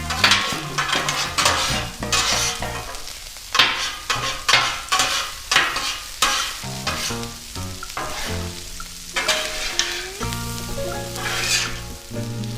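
Metal spatulas scraping and stirring food across a hot Blackstone flat-top griddle, with a steady sizzle under a run of quick scraping strokes. Background music plays along.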